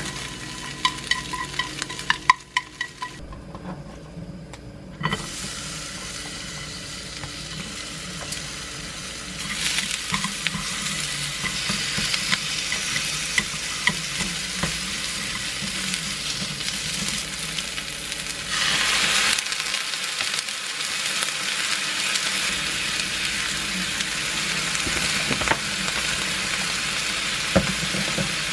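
Wooden chopsticks clicking against a small pan as eggs are scrambled over high heat. After a short break, sliced onions sizzle steadily in olive oil in a frying pan while being stirred with chopsticks. The sizzle grows louder with a stronger burst about two-thirds of the way in.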